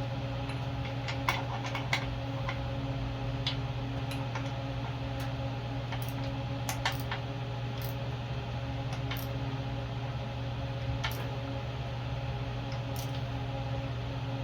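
Scattered sharp metallic clicks and taps from hand tools working at a pressure washer's engine mounting bolts, about fifteen over the stretch, over a steady low hum.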